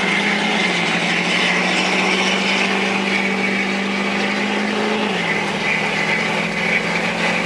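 Engine hum and road noise inside a moving vehicle's cabin. The hum drops slightly in pitch twice, about a second in and again about five seconds in.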